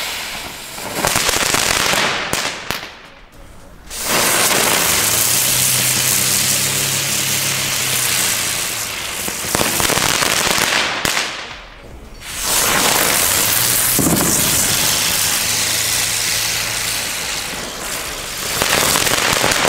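Xplode Storm ground spinners spinning and spraying sparks, a loud hiss that comes in several long runs as one spinner after another burns, with brief lulls about four and twelve seconds in.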